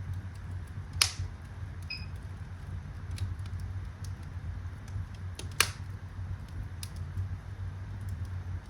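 Fireplace fire burning: a steady low rumble of flame with scattered small crackles, and two loud sharp pops, about a second in and again about four and a half seconds later.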